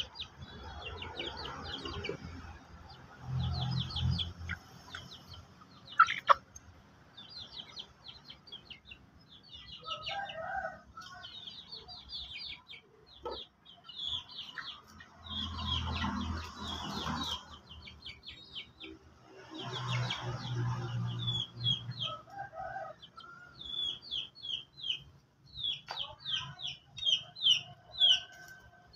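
Chickens clucking, with dense, rapid high-pitched chirping that grows busier toward the end, and a sharp knock about six seconds in.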